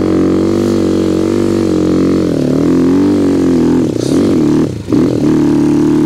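Sharmax RX300 enduro motorcycle engine running at a steady idle, its note dipping briefly and recovering twice, about halfway through and again near the end.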